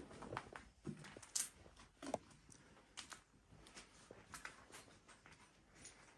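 Faint, irregular clicks and light knocks, a dozen or so scattered through a quiet room.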